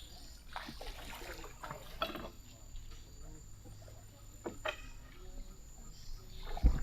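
Water splashing and trickling lightly around a bamboo raft drifting on a slow river, with a low thump near the end.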